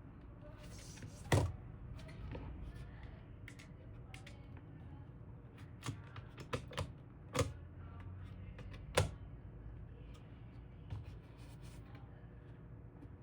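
Scattered sharp clicks and taps of small hard parts being handled, about half a dozen in all, the loudest about a second in and a quick cluster past the middle, with a brief hiss just before the first loud click.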